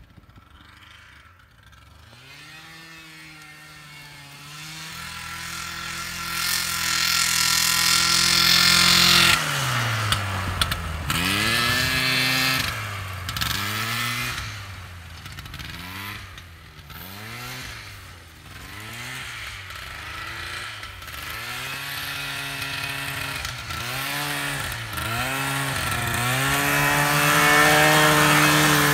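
A 1969 Ski Daddler Super Twin snowmobile's Hirth 634cc two-stroke twin engine, running on both cylinders under a rider. It holds a steady note that grows louder, drops sharply about nine seconds in, then revs up and down again and again. Near the end it holds a steady high note at its loudest.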